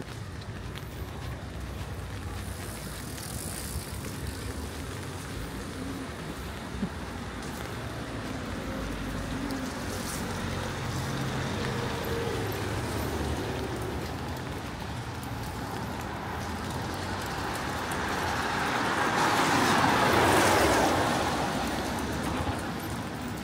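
Car traffic on a rain-wet street: a steady low rumble of engines and tyres, with a car passing on the wet road and swelling to its loudest near the end.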